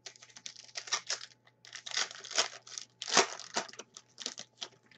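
A trading card pack's wrapper being torn open and crinkled by hand: a quick, uneven run of tearing and crinkling noises, loudest about three seconds in.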